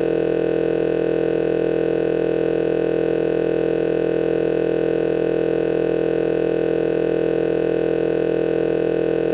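Loud, steady electronic hum made of several held tones, strongest in the middle register, with no change in pitch or level.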